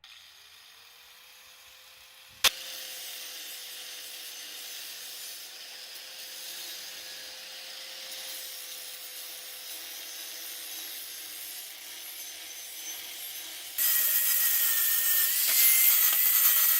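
A grinder grinding the corners of steel pieces before welding. Its steady running sound has a sharp click a couple of seconds in. Near the end it turns much louder and harsher, with a wavering whine.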